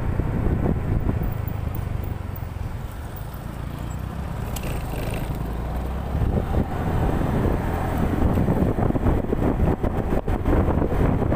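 Motorcycle ride at road speed: wind rushing and buffeting over the microphone, mixed with the bike's engine and road noise. It eases a few seconds in, then grows louder and gustier from about six seconds on.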